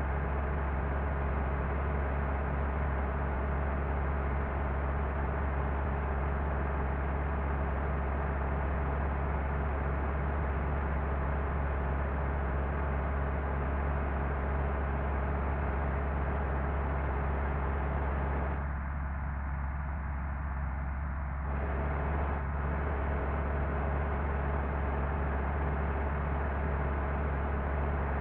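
Intercity bus running on the road: a steady drone of engine and road noise with a strong low hum, which eases briefly about two-thirds of the way through.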